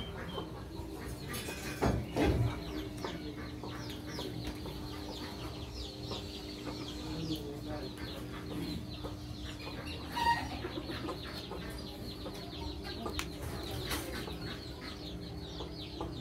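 Chickens clucking among many quick, high bird chirps over a steady low hum. A louder burst comes about two seconds in and a short call about ten seconds in.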